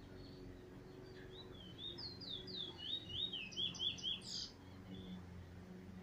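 Caged bullfinch singing one phrase of quick, repeated slurred whistles that speed up toward the end and close on a higher buzzy note, over a faint steady low hum.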